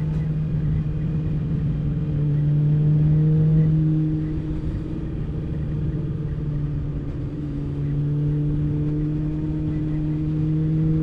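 Motorcycle engine running at a steady cruising speed, easing off about four seconds in and picking up again, its pitch rising slightly near the end.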